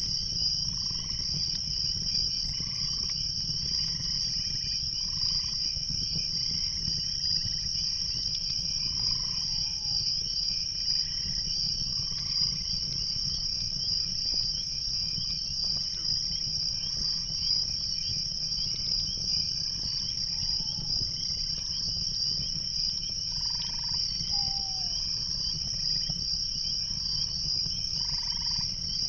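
Night chorus of crickets: a steady high trill with a fainter second trill beneath it, soft pulsing calls about once a second, and a few short falling calls, over a steady low rumble.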